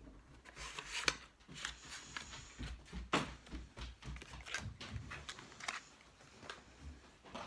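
Faint handling sounds: scattered light clicks, taps and rustles of small cosmetic items and their packaging being picked up and put down.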